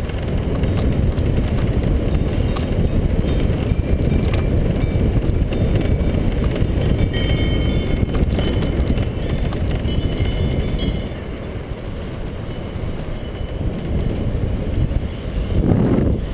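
Steady rush of wind buffeting the microphone of a moving camera, mixed with low tyre rumble over the road, with a few light rattles and ticks, the loudest about halfway through over rough patched asphalt.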